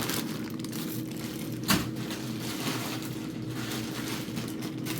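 Frozen food packages being handled and set into a freezer: plastic bags rustling, with one sharp knock about a second and a half in, over a steady low hum.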